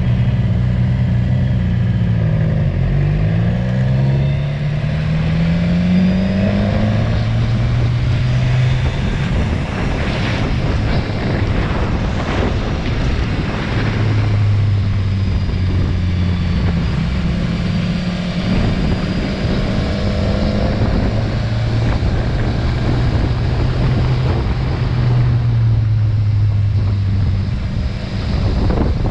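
Motorcycle engine under way, its pitch climbing over several seconds as it accelerates out of the bends, then holding steady and dropping back several times, over a constant rush of riding wind.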